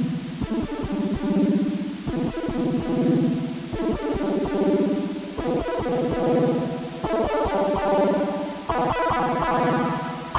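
Techno music: sustained synthesizer chords changing about every second and a half over a steady, even kick drum beat.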